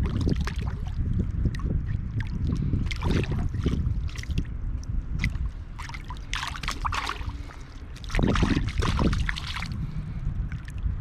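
Close river water splashing and sloshing, with louder splashes about three seconds in, again around six to seven seconds and around eight to nine seconds, over a steady low rumble.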